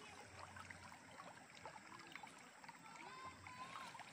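Faint river water trickling and lapping, with small scattered splashes.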